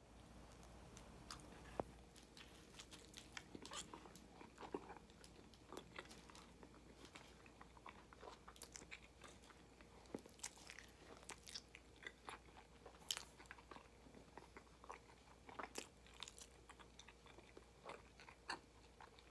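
A person biting into and chewing a chicken meatball sub: faint, irregular small clicks and crunches of mouth and bread.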